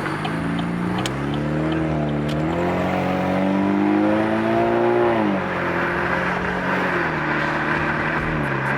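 2017 Chevrolet Camaro's 2.0-litre turbocharged four-cylinder engine pulling under acceleration, its note rising steadily. It drops sharply about five seconds in, then holds steady before stepping down again near the end.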